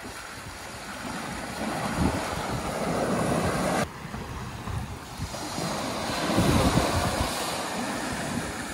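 Wind buffeting the microphone over small waves washing on the beach: a steady rush that swells and eases, with low rumbling gusts. It drops suddenly just under four seconds in, then builds again.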